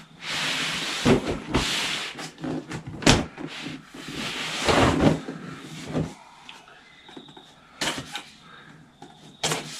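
A large cardboard box being handled: the cardboard rubs and scrapes as it is turned and tipped onto its end, with a few sharp knocks and taps against it, the loudest about three seconds in.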